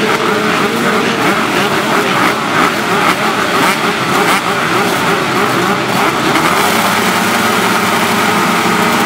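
A full gate of motocross bikes revving together at the start line, holding their engines high while they wait for the gate to drop. The exhaust smoke points to two-stroke engines. The pack's pitch climbs a little about six and a half seconds in.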